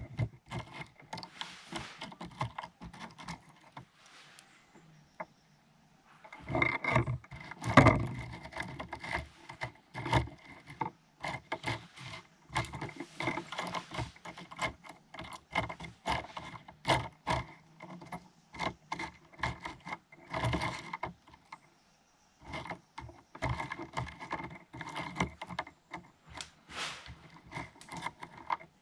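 Irregular small clicks, taps and scrapes of hand tools and parts against a GoPro action camera's body as it is taken apart, going on almost without pause apart from two short lulls, one about five seconds in and one a little after twenty seconds.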